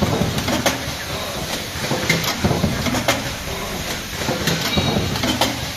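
Automatic card hot stamping machine running: steady mechanical clatter with sharp clicks and knocks about twice a second from its feed and stamping mechanisms, and a short rising whine about three-quarters through.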